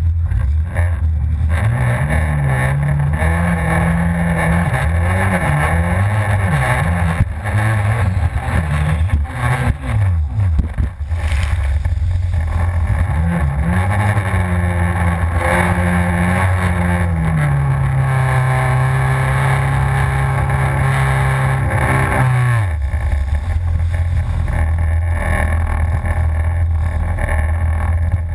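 Yamaha FZS personal watercraft engine revving up and down with the throttle, its pitch rising and falling over a rush of wind and water. About ten seconds in, the engine note breaks up and dips briefly. Later it holds a steady high pitch before dropping away.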